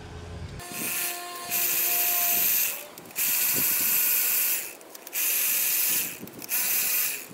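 Cordless drill driving a screw into an antenna mast clamp, running at speed in four or five bursts of about a second each with brief pauses between, until the screw is seated tight.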